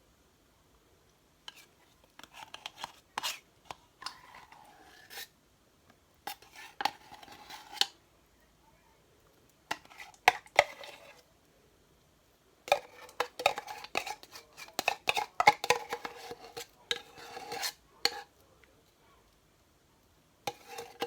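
A spoon scraping and clinking against a tin and a bowl in irregular bursts as thick canned caramel is scooped out into whipped cream.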